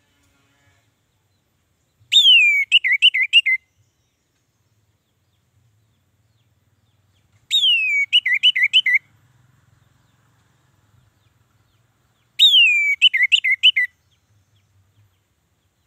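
Orange-headed thrush (anis merah) singing three short phrases about five seconds apart. Each phrase is a falling whistle followed by a quick run of rising-and-falling notes.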